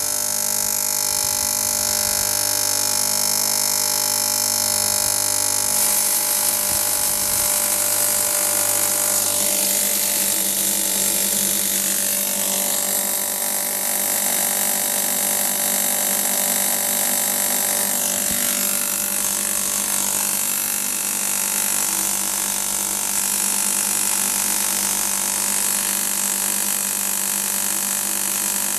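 ZIM-500 hammer-type grain grinder running steadily under load, milling a mixed grain feed of sunflower seeds and corn as it flows down from the hopper: a steady hum with a dense, even hiss of grain being ground.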